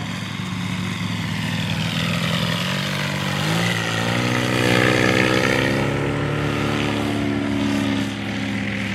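Valach VM120B2 twin-cylinder two-stroke engine of a large-scale model Fokker Eindecker, running at speed with a 30x12 propeller. Its pitch steps up about three seconds in and it is loudest in the middle as the plane passes low and close, then the level drops suddenly near the end.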